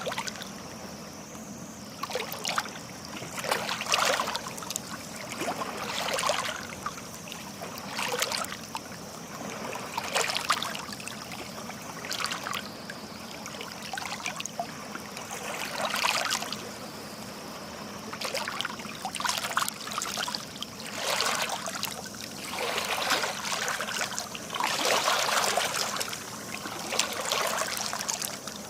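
Sea water lapping and splashing, in uneven surges every second or two over a steady wash.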